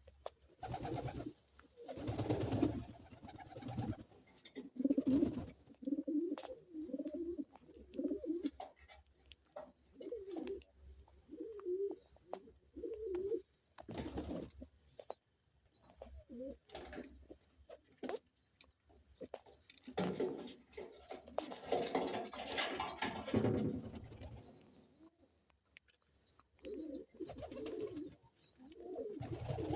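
Domestic pigeons cooing over and over in low, warbling phrases, with small birds chirping faintly and high throughout. A few louder noisy bursts break in, one a little after the start, a sharp one about halfway, and a longer stretch a little past two-thirds of the way through.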